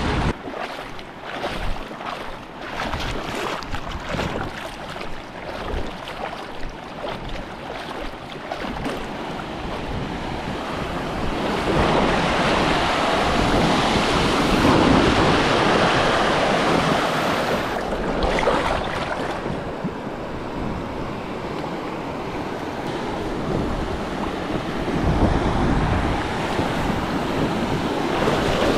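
Rushing river water, louder in the middle, with wind buffeting the microphone.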